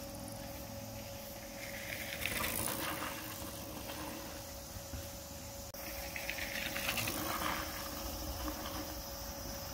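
Mountain bike tyres carving through a loose dirt berm, twice: each pass is a rising and falling rush of tyre scrub and sprayed dirt.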